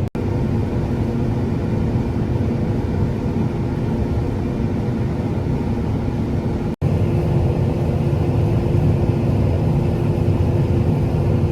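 A combine harvester runs steadily as heard inside its cab: a constant low drone with a couple of held tones. The sound drops out for an instant about seven seconds in, then carries on the same.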